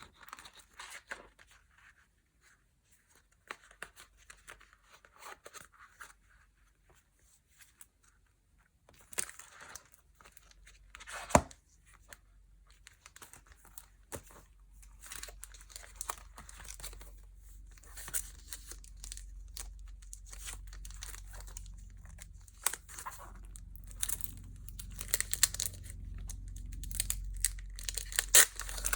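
Packaging being handled, crinkled and torn open by hand, in intermittent rustles and crackles. There is a quiet stretch early on, a sharp snap about eleven seconds in, and busier rustling over a low rumble toward the end.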